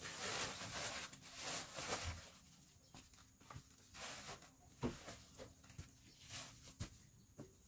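Plastic sacks rustling and crinkling as they are handled and secured onto a motorbike's rear, loudest in the first two seconds, followed by a few scattered knocks and clicks.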